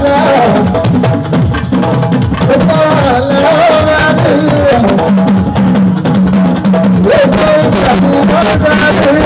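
Live band music: a male singer sings into a microphone over talking drums and hand percussion, with a held low note in the accompaniment partway through.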